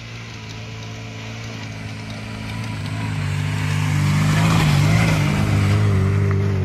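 Lada Niva 4x4's 1.7-litre four-cylinder petrol engine running under load as the car drives along the track. It grows steadily louder as the car approaches, is loudest about four to five seconds in as it passes, and the engine pitch wavers with the throttle.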